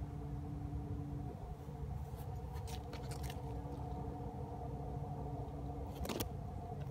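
A steady low mechanical hum with a few held tones underneath. Scattered faint ticks come around the middle, and a short sharp crackle about six seconds in.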